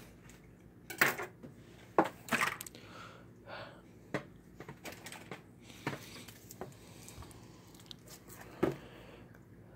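Cardboard game box being handled: the lid pulled off its base and the folded game board lifted out, giving scattered light knocks and rustles, with a sharper knock near the end.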